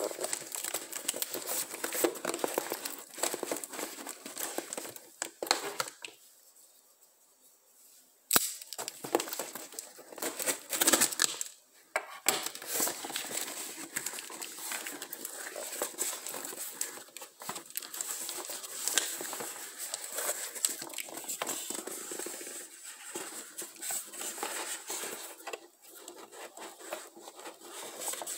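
Cardboard shipping box being torn open by hand: flaps ripping, scraping and crinkling, with a brief lull about six seconds in before the tearing starts again with a sharp snap.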